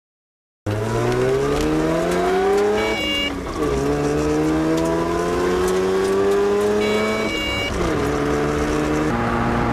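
Mazda rotary engine heard from inside the car, accelerating hard through the gears. It starts suddenly just under a second in, and its note climbs, drops at a gear change about three seconds in, climbs again and drops at a second change about seven and a half seconds in, then holds steady. A short high tone sounds just before each change.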